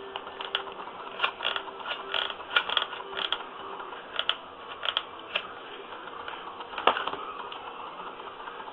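Industrial hot glue gun clicking and ratcheting: a run of irregular clicks over the first five seconds or so and one louder click near the end, as the trigger is squeezed to feed a new glue stick.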